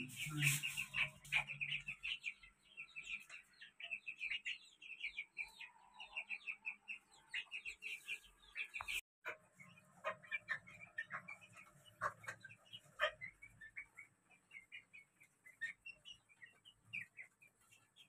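Chickens making many short, high-pitched chirps, a quick busy run of them at first, thinning out after a sudden break about halfway, with a few sharp clicks in the second half.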